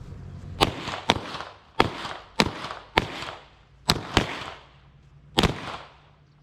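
Handgun shots fired in a string of about eight sharp reports at uneven spacing, some in quick pairs, each followed by a brief ringing echo.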